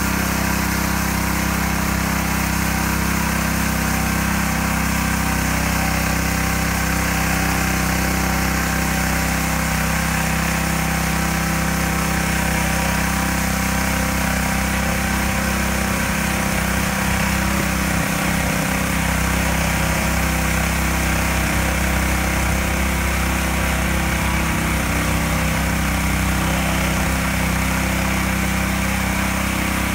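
Kersten K1500 weed brush running steadily: its small petrol engine holds a constant speed while the rotating wire brush scrubs weeds and grit from the kerb edge and asphalt.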